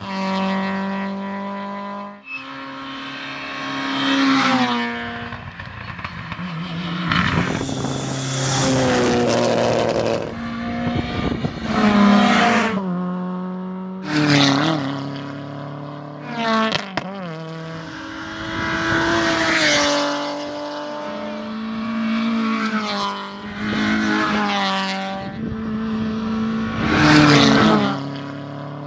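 Rally cars passing one after another at full throttle, engines revving high and the note climbing and falling through gear changes, each pass swelling loud as the car goes by.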